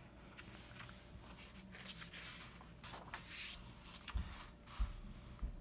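Faint rustling and sliding of paper as the pages of a picture book are handled and turned, with a few soft low thumps near the end.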